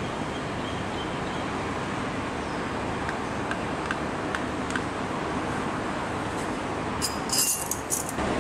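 Steady rushing background noise. Near the end a metal spoon clinks sharply against the ceramic spotting palette several times.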